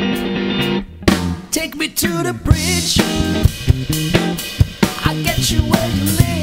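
Funk band playing live: electric guitar, electric bass and drum kit. A held chord stops about a second in, then the drums and bass pick up a tight groove under guitar notes that bend in pitch.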